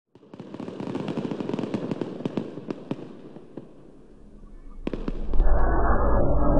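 Dense crackling with many sharp pops, thinning out after about three and a half seconds, then two sharp clicks. Muffled music with a heavy low end starts about five seconds in.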